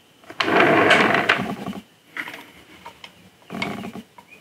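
Model kit parts scraping and creaking against each other as a tight-fitting building piece is worked into its socket by hand. There is one long, loud scrape, then two shorter, fainter ones.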